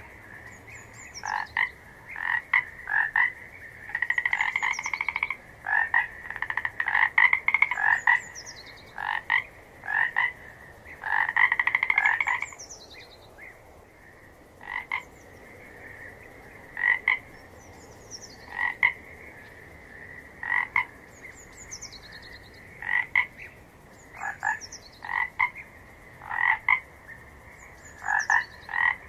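A frog chorus: a steady background trill under louder croaking calls, some single and some in rapid runs of up to about a second, repeating every second or two. A high, falling call recurs every few seconds, with a lull of a couple of seconds near the middle.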